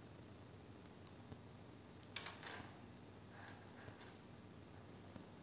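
Faint clicks and light scrapes of metal circular knitting needles as the needle is slid through the stitches, with a short cluster of clicks about two seconds in. Otherwise near silence.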